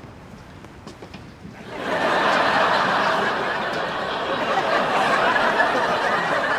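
Studio audience laughing, starting about two seconds in and carrying on steadily.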